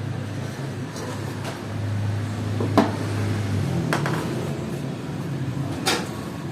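Three sharp clicks and knocks of metal tools and engine parts being handled during motorcycle engine repair, the first the loudest, over a steady low hum.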